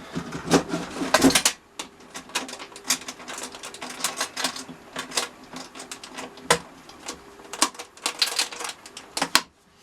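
Irregular light clicking and tapping of small wooden pieces being handled on a workbench, with a faint steady hum underneath.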